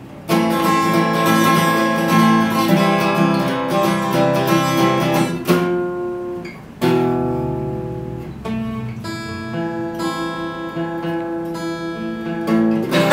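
Acoustic guitar music, strummed chords with steady held notes, coming in abruptly just after the start and changing sharply about seven seconds in.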